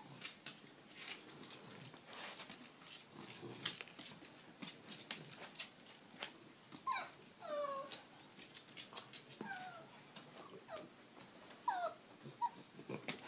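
Shiba Inu whining in short, high, falling whimpers, several times from about seven seconds in, over the light tapping of its claws on a wooden floor.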